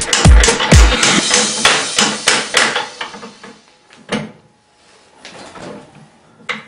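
Electronic dance music ending: its last kick-drum beats, about two a second, stop about a second in, leaving a noisy cymbal-like wash that fades out over the next two seconds. After that there are only a couple of faint knocks.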